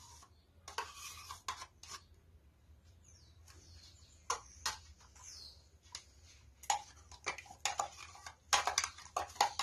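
Metal spoon scraping plain yogurt out of small plastic cups and tapping against the cups and a glass bowl: scattered light clicks and taps, thickest near the end.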